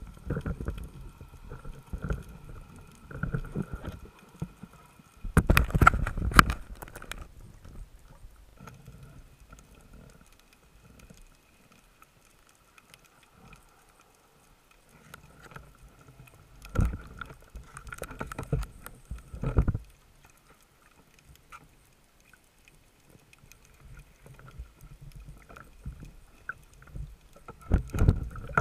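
Underwater camera housing picking up muffled rushes of water and knocks as it is moved about, in several loud bursts over a faint steady whine.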